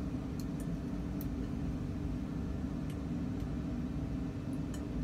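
Steady low hum of a laboratory ventilation fan, with a few faint light clicks of glassware being handled.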